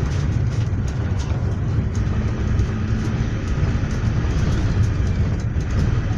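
Cabin noise inside a GAZelle Next minibus on the move: a steady low rumble of engine and road, with faint scattered clicks and rattles.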